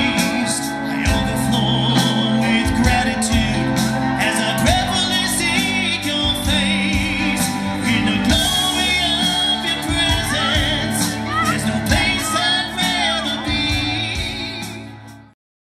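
Live band music with singing, played through an RCF PA system. Voice, instruments and regular drum hits carry on steadily, then fade out near the end.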